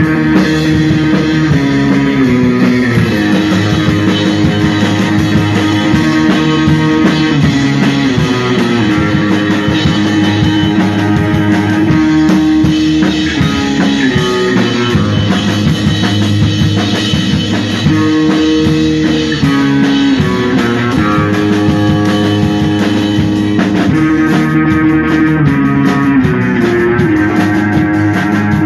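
Rock band jamming loud and continuous: electric bass, electric guitar and drums, with held chords that shift in pitch every second or two.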